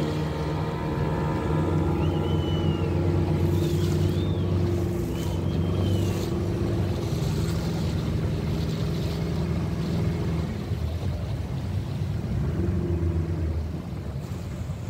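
Motor of a river canoe running steadily under way, with water rushing along the hull; the engine's level drops near the end. Three short high chirps sound between about two and six seconds in.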